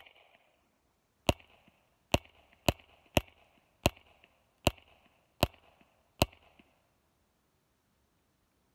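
Beretta Model 71 .22 LR semi-automatic pistol fired through an AWC Archangel II suppressor: a string of about nine muffled shots, roughly one every three-quarters of a second, each a sharp crack with a brief echo, stopping about six seconds in.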